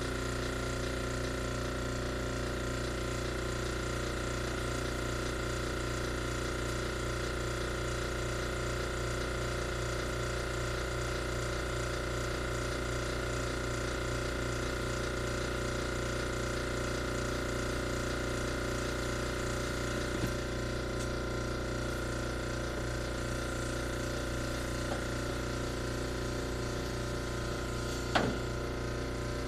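A machine running steadily: a continuous mechanical hum with several constant tones and a fine, even rattle. A couple of faint clicks come near the end.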